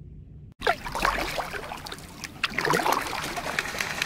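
Canada geese taking off from the river, honking, their wings and feet splashing across the water. It starts suddenly about half a second in, with the loudest calls and splashes near the start and again around three seconds in.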